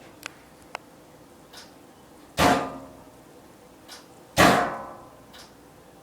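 Two loud metallic clangs about two seconds apart, each ringing briefly before dying away, with a few light clicks in between.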